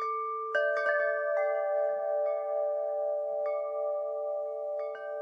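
Wind chimes ringing: a quick cluster of strikes in the first second and a half, then scattered single strikes with a couple more near the end, each note ringing on long and overlapping the others.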